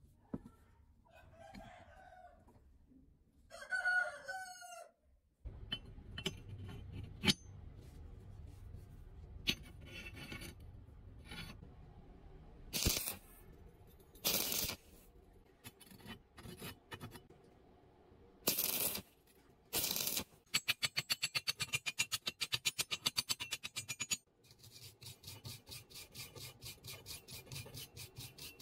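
A rooster crows twice in the background, each call a little over a second long. Then come scattered clicks and knocks of steel rebar, short crackling bursts of stick-welding tack welds, and near the end a long run of even ticks, about eight a second.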